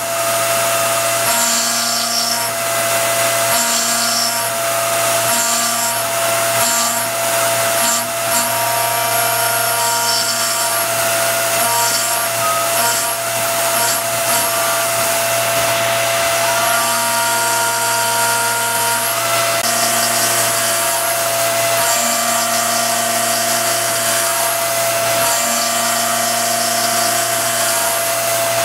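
CNC milling machine cutting a steel 1911 slide with a 1/8-inch cutter, its spindle running at about 6800 RPM. A steady spindle and cutting whine, with other tones coming and going every second or two as the cutter works along its path.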